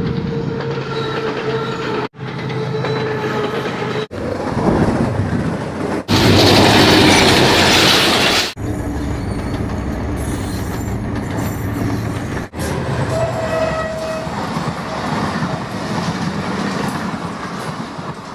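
Diesel-hauled passenger train running on the rails, with wheel and rail noise. The sound cuts out abruptly several times and is loudest for about two seconds near the middle.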